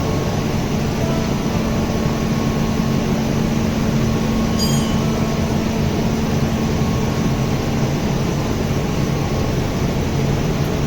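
Steady loud drone of running machinery with a constant low hum, unchanging throughout.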